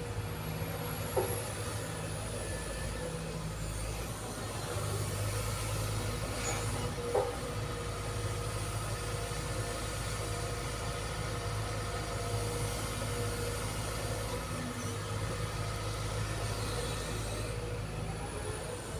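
Sumitomo SH210 excavator's diesel engine running steadily, with two short clicks, about a second in and about seven seconds in.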